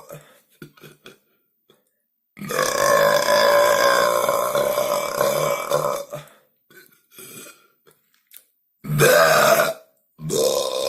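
A teenage boy burping long and loud: one long burp of about four seconds, a short one about nine seconds in, and another starting near the end, with faint small sounds in the gaps.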